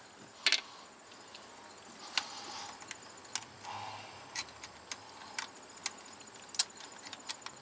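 Scattered sharp metallic clicks and clinks of hand tools as a starter mounting bolt is threaded in and turned down, about ten at irregular intervals.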